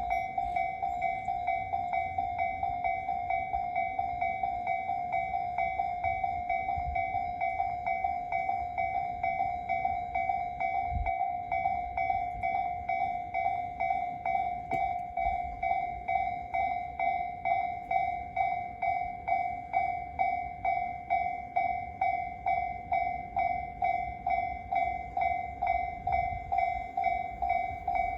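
Japanese railway level-crossing warning bell of the electronic Tobu Tojo-Line type, ringing in an even, rapid repeating rhythm of pitched dings.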